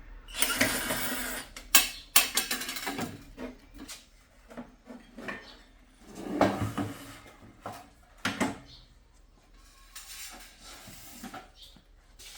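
Irregular clatter, scraping and sharp knocks of hard objects being handled, loudest at the start, about six seconds in and around eight seconds.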